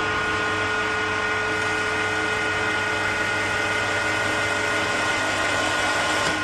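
CNC wood turning lathe running, a steady whine of several high tones over a broad hiss as it turns a wooden workpiece.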